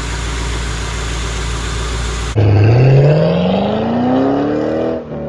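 MG ZT 260's 4.6-litre V8 idling steadily, its serpentine belt running on a newly fitted tensioner and idler pulleys. It cuts off suddenly about two and a half seconds in, and a sound effect follows with one pitch rising smoothly for about two and a half seconds, like an engine revving up.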